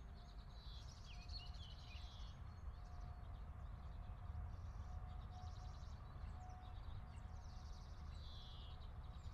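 Faint outdoor ambience: small birds chirping in short, repeated calls, over a steady low background rumble.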